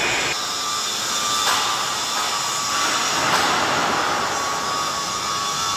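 Steady industrial shop noise: an even, loud rushing hiss of running machinery, with a faint steady high whine through it.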